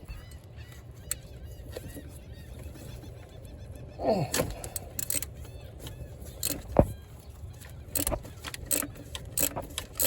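Wind rumbling on the microphone, then from about four seconds in a descending squeak followed by a run of sharp clicks and clatters as parts are handled.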